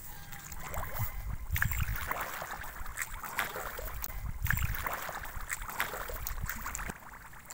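Footsteps wading through the shallow water and mud of a flooded rice paddy: irregular sloshing and splashing, dropping off near the end.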